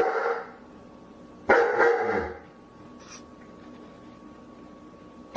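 A dog barking twice, about a second and a half apart, with a lull after the second bark.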